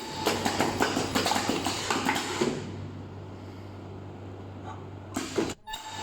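Mask earloop welding machine at work: dense clicking and clatter for about two and a half seconds, then a steady low hum, with a short burst of noise near the end.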